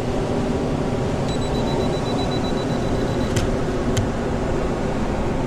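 Canon 7D digital camera's self-timer beeping rapidly for about two seconds, then the shutter firing: two sharp clicks a little over half a second apart. A steady low rumble runs underneath.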